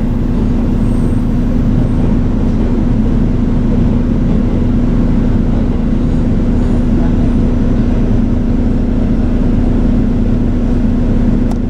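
Steady drone of a bus heard from inside its cabin: engine and road noise with a constant low hum.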